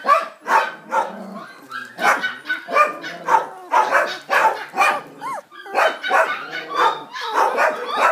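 Border Collie puppy yelping over and over, two or three short cries a second, with a few short rising-and-falling whines about five seconds in and near the end.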